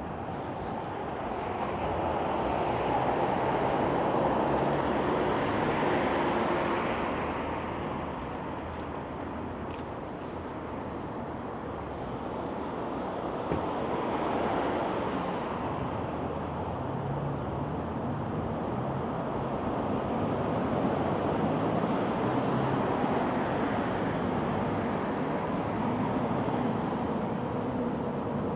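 City street traffic: cars passing, swelling and fading over a steady traffic hum, loudest a few seconds in and again about halfway.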